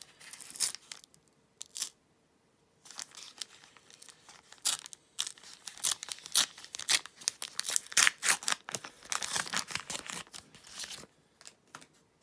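Panini Adrenalyn XL card-pack wrapper being torn open by hand: a short rip, then several seconds of crinkling and tearing as it is peeled back, stopping near the end.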